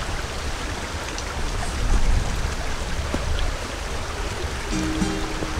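A small stream running with a steady rush of water, over a low wind rumble on the microphone. Background music comes in near the end.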